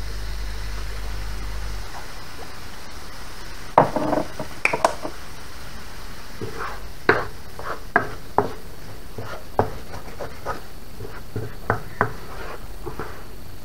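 Wooden spoon stirring rice in a non-stick frying pan: irregular knocks and scrapes of the spoon against the pan, starting about four seconds in, over a steady hiss.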